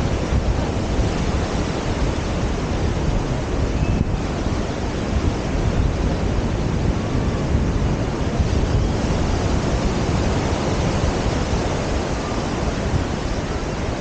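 Ocean surf washing onto a sandy beach, a steady rushing noise, mixed with wind buffeting the microphone.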